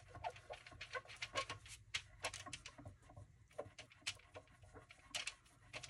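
Fingertips and long fingernails rubbing residual adhesive, softened with Goo Gone, off the clear plastic window of a paper envelope. It makes faint, irregular scratching and light clicks, several a second.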